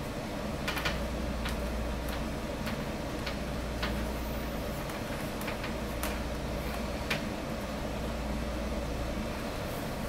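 Scattered light clicks and scrapes of a coaxial cable connector being handled and screwed together, over a steady low hum.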